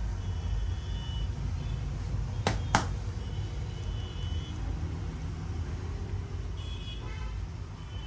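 Two sharp cracks about a quarter of a second apart, a little over two seconds in, over a steady low rumble with a few faint short high tones.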